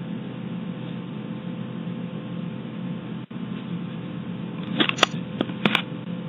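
Steady hum and hiss from a doorbell camera's microphone, which drops out for an instant about three seconds in. Near the end come a quick run of four or five sharp clicks.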